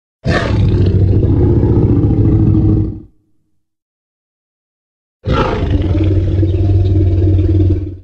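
Two Tyrannosaurus rex roar sound effects, each about three seconds long and about two seconds apart. Each opens with a higher, harsh edge and settles into a deep, sustained low roar.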